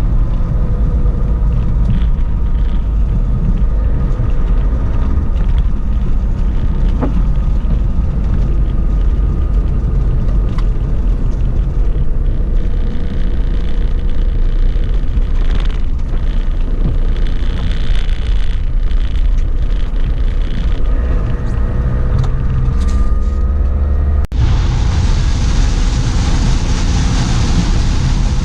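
Heavy rain with a loud, steady low rumble. A sudden cut about 24 seconds in brings a brighter, louder hiss of rain.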